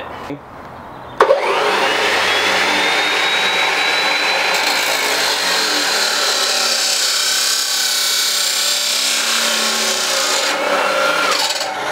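Abrasive cut-off chop saw starting about a second in, its motor whining quickly up to speed, then grinding through 1¼-inch steel square tubing with a loud, steady hiss. Near the end the motor's pitch falls.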